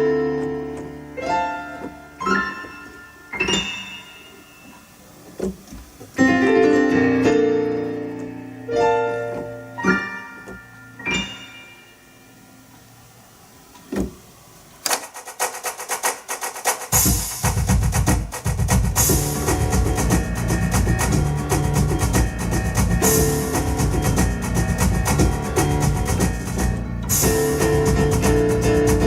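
Electone electronic organ playing a fast piano-led instrumental: separate piano chords that ring and fade, then about fifteen seconds in a steady drum rhythm comes in under busy piano, with bass joining soon after.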